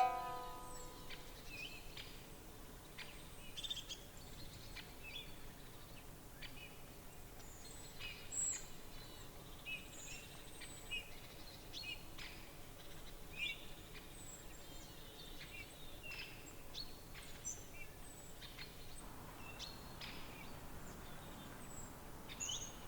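Quiet outdoor ambience with many short, high bird chirps and calls scattered throughout.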